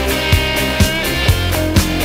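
Rock music with guitar over a steady drum beat of about two kicks a second.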